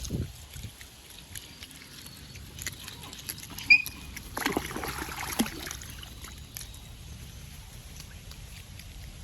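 Otters moving about in water: scattered small clicks and splashes, one short high chirp a little before the middle, then a second or so of splashing.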